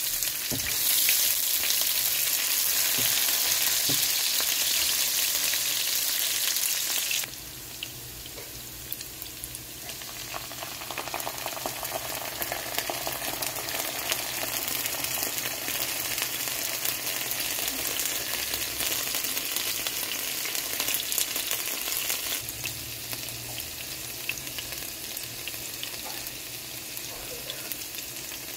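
Sliced onions sizzling in hot oil in a nonstick frying pan, with a spatula scraping and stirring now and then. The sizzle drops suddenly about seven seconds in and carries on quieter.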